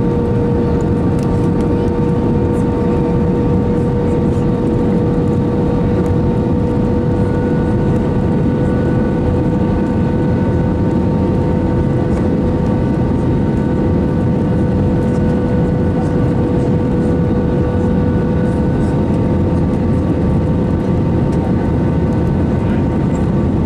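Steady airliner cabin noise inside an Airbus A320 in flight: the rush of air around the fuselage together with the even hum of its CFM56-5B4 turbofan engines, with a constant droning tone over it.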